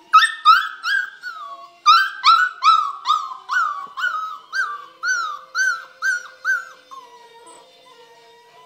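Six-week-old golden retriever puppy howling and yelping in a string of about fifteen short, high cries, each rising then dropping in pitch, about two a second. The cries stop about seven seconds in.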